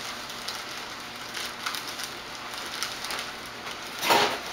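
Steady background hiss with a few faint ticks, and a short burst of noise lasting about a third of a second near the end.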